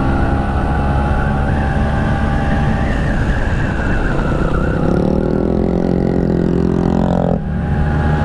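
Classic Vespa scooter's two-stroke engine running under way. About five seconds in the engine note climbs for two seconds, then drops suddenly near the end before settling back to a steady run.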